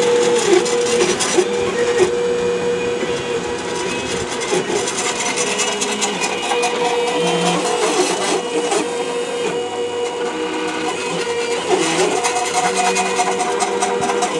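Stepper motors of a home-built CNC router driving its axes through a toolpath: a whine of several pitched tones that step up and down as the axes change speed and direction, with some rattling that the builder puts down to frame screws not yet tightened and Loctited.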